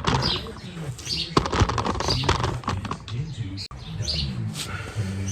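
Scattered clicks and rustles of hands handling a small engine's carburettor parts, with high chirping in the background.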